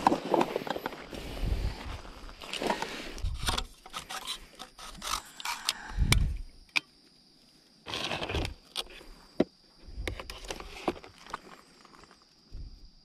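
Outdoor gear being handled by hand: rustling in a bag, then clicks, scrapes and knocks as a packraft paddle shaft is fitted together and set up as a lantern stand against a cooler box.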